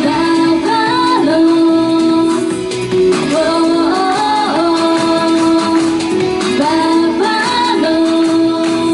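J-pop song with women singing over an instrumental backing track.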